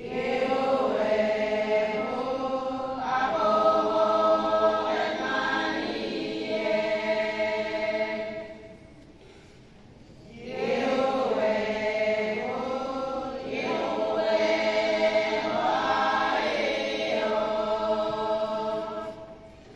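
Women's choir singing a praise hymn: two long phrases of about eight seconds each, with a short pause for breath about halfway through.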